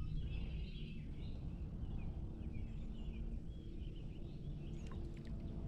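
Small birds chirping and singing over a steady low rumble, with a few light clicks near the end.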